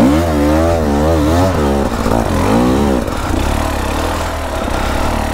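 Dirt bike engine revving up and down in quick surges as the rider works the throttle, for about three seconds, then running more evenly.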